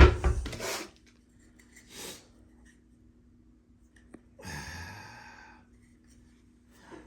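Handling noise as nails are put into a toolbox: a loud clatter at the start, a small click midway, then a breathy sigh-like sound, over a faint steady hum.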